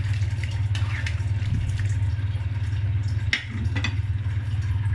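A steady low hum, with a few light knocks of a spatula against the wok about a second in and again past three seconds.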